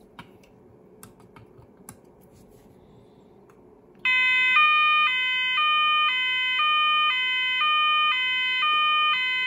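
Roshni LP (ROLP/SV) electronic fire alarm sounder starting up about four seconds in with a loud two-tone alarm, alternating between a high and a low tone about every three-quarters of a second. A few faint clicks come before it.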